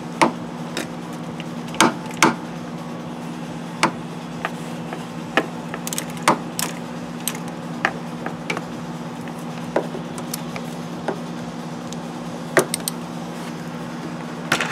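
Irregular sharp clicks and clinks of a wrench and fitting as a motorcycle brake-line fitting is tightened, over a steady low electrical hum.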